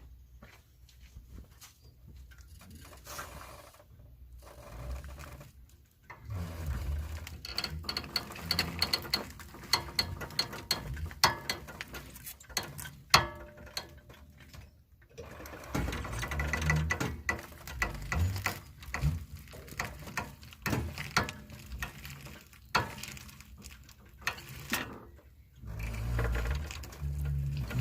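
Irregular mechanical clicking and metallic knocking from hand-tool work on a Suzuki Jimny's suspension, with ratchet-like clicks and a few short low rumbles.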